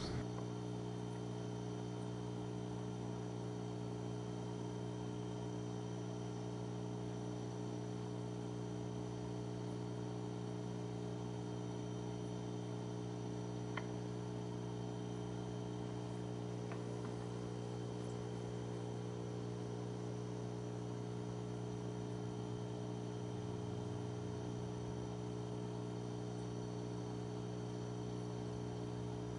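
Steady electrical hum with a faint buzz, unchanging throughout, with one tiny tick about fourteen seconds in.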